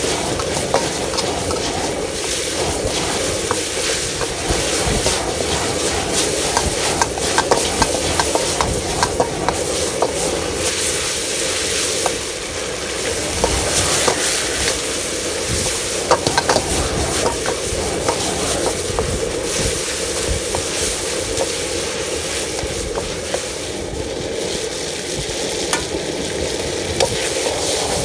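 Chicken stir-frying in a carbon-steel wok over a high-power outdoor wok burner: steady sizzling, with the metal Chinese ladle scraping and clacking against the wok many times as the food is tossed.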